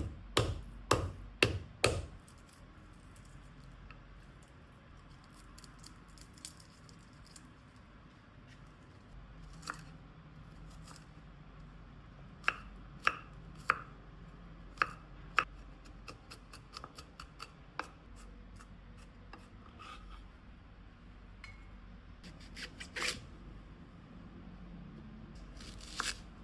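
Kitchen knife chopping vegetables on a cutting board. A quick run of about six chops comes at the start, then scattered cuts and light clicks, with another cluster of firmer chops a little before the middle.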